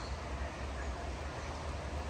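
Steady rush of a flowing trout creek, with a low rumble underneath.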